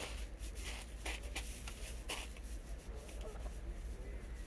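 Outdoor ambience: a steady low rumble, a few sharp clicks in the first half, and faint distant bird calls about three seconds in.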